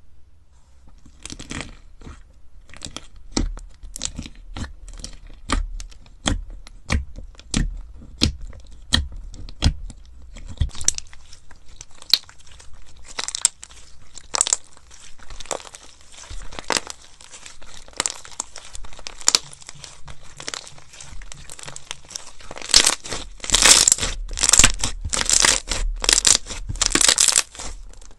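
Slime being poked and pressed by hand, giving a steady run of sharp, sticky pops. Near the end these turn into denser, louder crackling.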